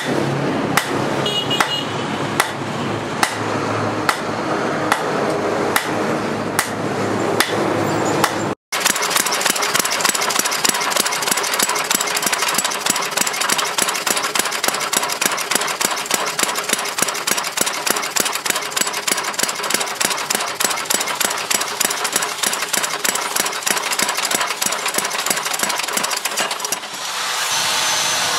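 Hand hammer striking a red-hot steel knife blade on a steel post anvil, in a steady rhythm of sharp metallic blows over a steady mechanical hum. After a cut the blows come much faster and keep up in a long run, then give way near the end to a rasping noise.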